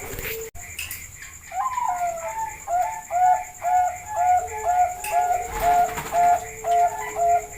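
Zebra dove (perkutut) song: a fast run of short, even coo notes, about two to three a second, after a gliding opening note, with a steady high-pitched tone underneath.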